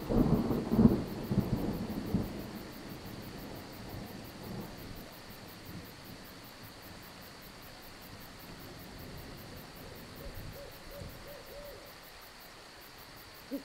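Thunder rumbling and crackling in the first couple of seconds, then fading away, over steady rain and a constant high chorus of crickets. A few faint, short owl hoots come near the end.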